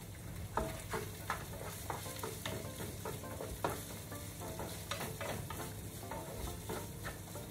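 Food sizzling in a frying pan as it is stirred with a utensil, with many short scrapes and taps against the pan over a steady low hum.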